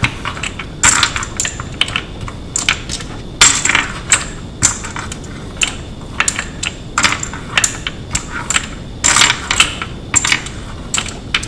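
Brass rifle cartridges clinking and clacking against each other and the wooden tray as handfuls are picked up, turned over and laid into a wooden speed-loader rail. The clicks come irregularly, a few at a time, with louder clusters about a second in, around three and a half seconds and around nine seconds.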